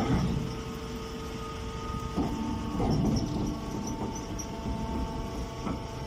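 Vertical hydraulic straw baler running, its electric motor and pump giving a steady hum, with a few knocks from the machine or the straw being loaded.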